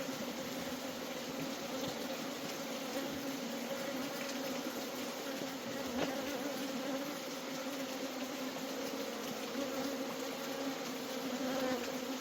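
A honeybee colony buzzing: a steady, even hum of many bees with a low tone and a higher one above it.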